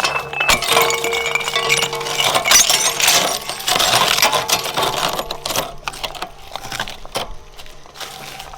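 Shredder blades crushing hard, brittle objects: a dense crackling and clinking that thins out after about six seconds.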